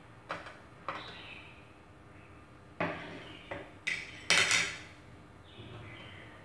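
Chopsticks clinking and scraping against ceramic plates as pieces of chicken are moved onto a plate of rice. There are about six sharp clinks, the loudest about four seconds in with a brief ring after it.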